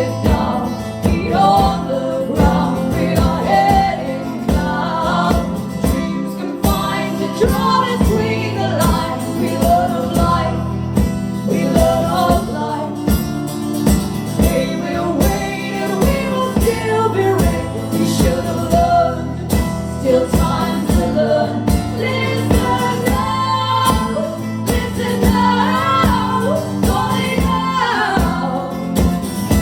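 Live band performance of a song, with singing over instruments and a steady beat.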